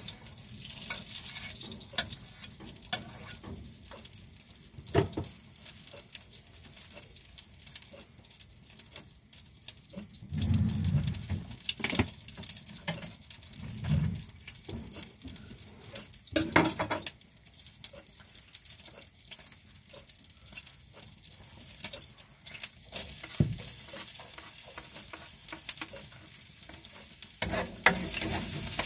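Margarine and oil sizzling gently in a non-stick wok, a soft steady hiss with occasional crackles and a few knocks. Near the end, sliced onion and garlic go into the pan and the sizzle turns louder as it is stirred with a spatula.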